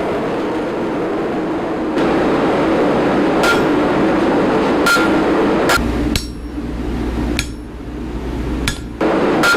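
Hammer blows striking hot steel on an anvil, a slow series of sharp strikes each with a short metallic ring, over a steady background noise.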